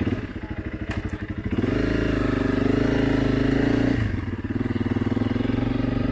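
Honda CRF300L Rally's single-cylinder four-stroke engine ticking over with an even pulsing beat, then pulling away about one and a half seconds in and running at a steady, higher pitch. There is a brief dip in the engine note about four seconds in.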